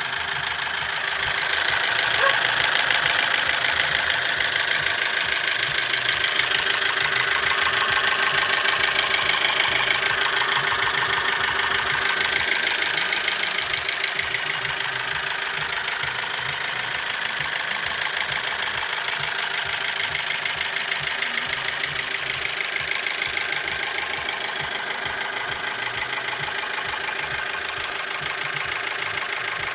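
Opel Z16XER 1.6-litre four-cylinder petrol engine running at idle with a fast, steady knocking. The knock appeared after the timing belt jumped a tooth while driving and was refitted to the timing marks.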